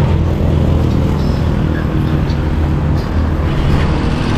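Motor vehicle engine running steadily, a constant low hum over road noise.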